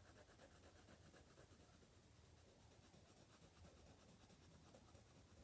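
Near silence, with faint scratching of a colored pencil drawing on sketchbook paper.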